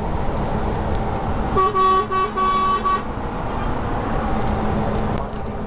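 Truck horn sounding a quick run of short toots, starting about a second and a half in and lasting about a second and a half, as a greeting to a colleague's truck. Under it the steady drone of the cab's engine and road noise continues.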